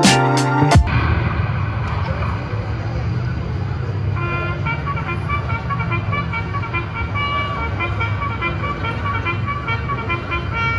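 A music track cuts off about a second in, leaving steady street traffic noise. Vehicle horns toot repeatedly over it from around the middle.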